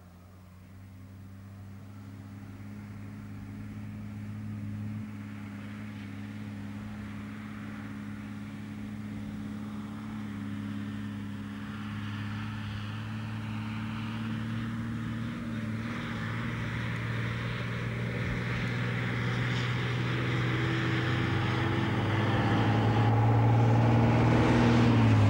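Bedford expedition truck's diesel engine running steadily as the truck approaches on a dirt road, growing louder throughout; near the end the engine note falls.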